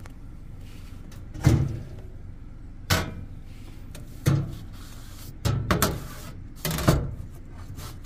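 Metal mailbox door being handled and pulled open, making about half a dozen sharp clunks and knocks, the loudest about a second and a half in, over a low steady rumble.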